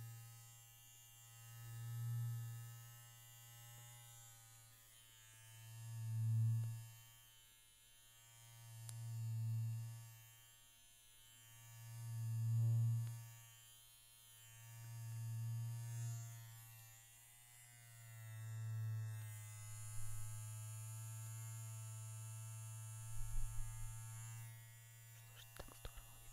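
Hapica electric toothbrush buzzing with a low, steady hum that swells and fades every three seconds or so, then holds level for a few seconds before stopping near the end, followed by a few light clicks.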